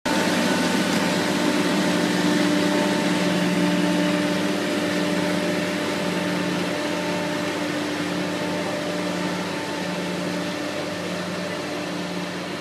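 Johnson tomato harvester running in the field, its engine and conveyors making a steady mechanical hum with a low tone that pulses about once a second. It grows slowly fainter as the machine moves off.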